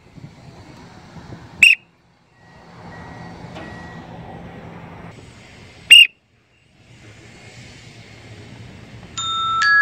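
Two short, loud blasts on a coach's whistle, about four seconds apart. Near the end, glockenspiel-like chiming music begins.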